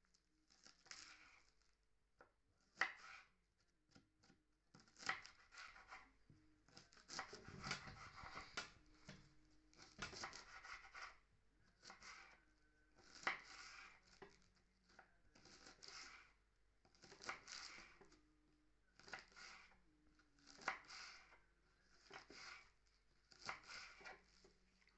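Faint kitchen food-preparation sounds: short scraping or rubbing strokes repeated about once every one and a half seconds.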